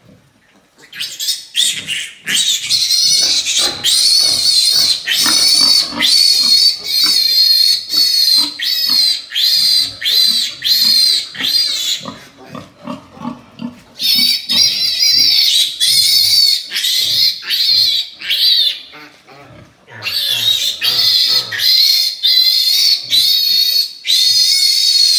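Newborn piglet squealing: a long run of loud, shrill screams, one after another, breaking off briefly about halfway and again near two-thirds through. These are the distress squeals of a piglet caught and held by hand for its iron injection.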